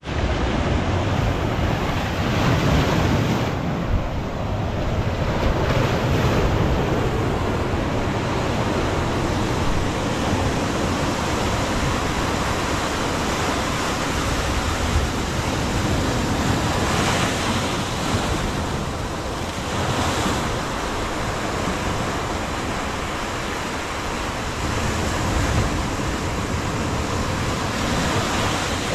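Sea surf breaking and washing in steadily, swelling a few times, with wind rumbling on the microphone.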